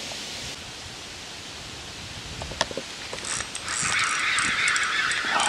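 A spinning reel being cranked, winding in line after a strike, with a steady whirring that starts abruptly a little past halfway and is preceded by a single sharp click.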